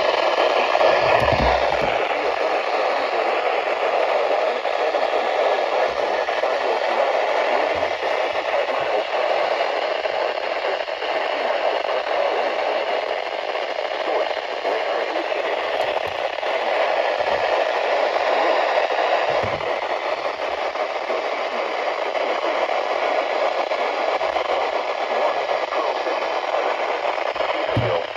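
Radio static: a steady hiss from a receiver tuned to a weak or idle station, with a few faint low bumps.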